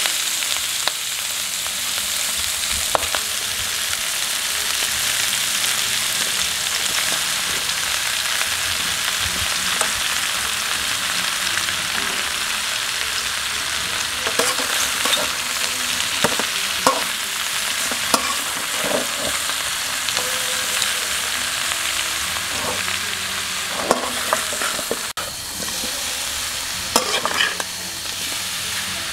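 Chunks of crocodile tail meat frying in a hot metal wok with a steady, loud sizzle. In the second half a metal spatula scrapes and knocks against the wok as the meat is stirred.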